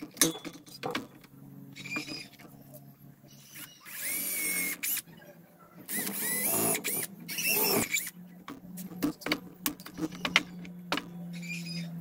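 Makita cordless drill boring into a block of maulawin hardwood. The motor hums, and in two louder spells about four and six seconds in it rises to a high, wavering whine as the bit cuts. Sharp clicks and knocks come between the spells.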